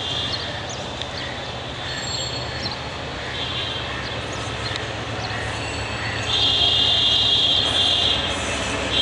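Diesel locomotive hauling a passenger train on an approach, its engine giving a steady low rumble. A high-pitched wheel squeal comes and goes and grows louder from about six seconds in.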